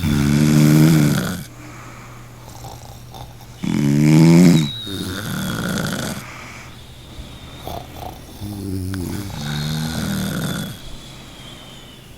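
A person snoring: three pitched snores about four seconds apart, the second the loudest, with softer breathing between them.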